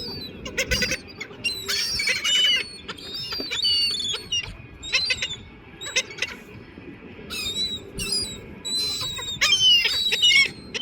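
Seagulls calling over and over: short, high, squealing calls, several birds at once, loudest near the end.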